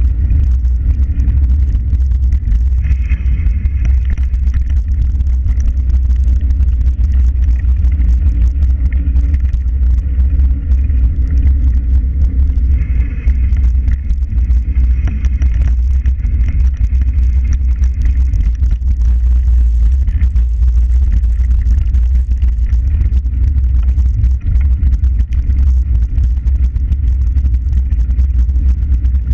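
Loud, steady low rumble of wind buffeting the microphone of a camera travelling quickly along a paved path, mixed with the noise of wheels rolling over the surface.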